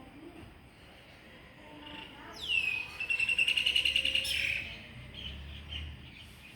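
A bird singing: a high note sliding down into a rapid trill lasting about two seconds, followed by a few fainter chirps.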